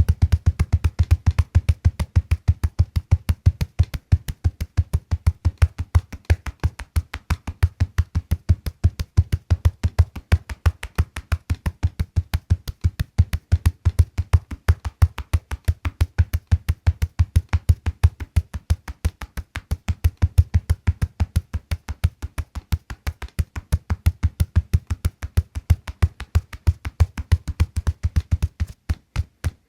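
Steady, even rhythm of low thumps, about four a second, over a constant deep hum.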